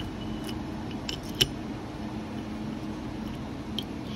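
Metal sub-transmission parts, a gear and its shim, clicking and clinking as they are handled and fitted onto a shaft. There are a few scattered light taps, the sharpest about a second and a half in, over a steady background hum.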